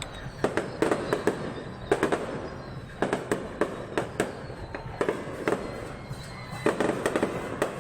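Fireworks display: a string of aerial shell bursts going off at irregular intervals, a dozen or so sharp bangs over a continuous rumble of further explosions.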